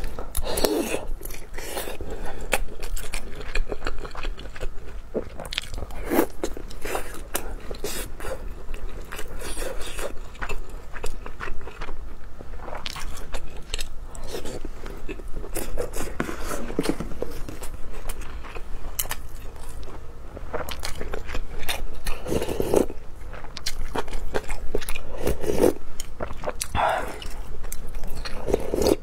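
Close-miked eating of luosifen rice noodle soup: wet chewing and biting of a meatball and soft rice noodles, with short louder mouth sounds every few seconds. Near the end a spoonful of the soup is sipped.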